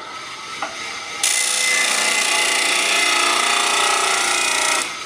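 Apex 16-inch 1 hp disc sander running with a steady whine; about a second in, a hardened steel bearing race is pressed against the spinning sanding disc, giving a loud grinding rasp for about three and a half seconds that cuts off suddenly, leaving the motor running.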